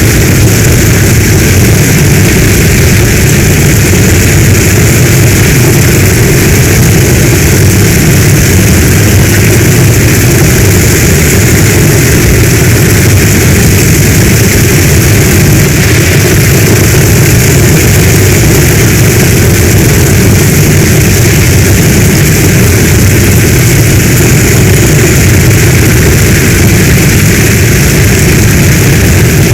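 Heavy storm rain: a loud, steady rushing hiss with a deep rumble beneath it.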